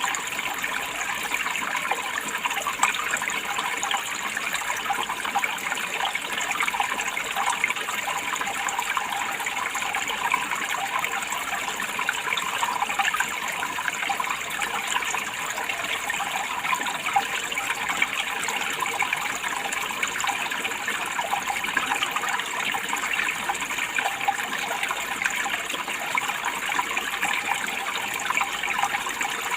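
Running water splashing steadily, an even, dense rush with fine rapid patter and no pauses or changes.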